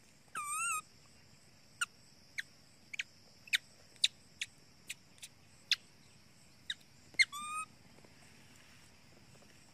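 Baby macaque calling: a high, wavering cry about half a second in and again near the end, with a string of short, sharp squeaks roughly every half second between them.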